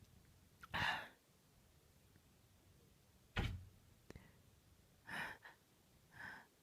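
A woman's short, quiet breaths during a bout of sneezing, three soft puffs of air, with a soft thump a little past halfway.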